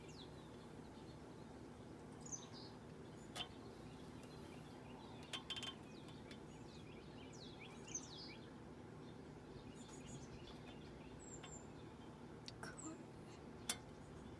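Faint background of small birds chirping, with short falling chirps scattered throughout, over a steady low hum. A few sharp clicks and knocks are heard, the loudest near the end.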